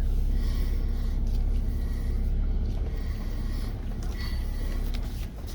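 Jeep engine running steadily with a low rumble, growing gradually quieter.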